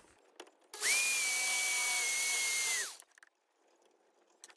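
Corded power tool cutting into a PVC pipe elbow, widening a channel for a screw: the motor runs once for about two seconds with a steady high whine over a hiss, then winds down.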